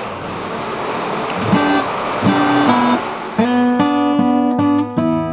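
Background music on plucked acoustic guitar. After about a second and a half of hiss, single picked notes come in, and the playing grows into a fuller picked pattern about halfway through.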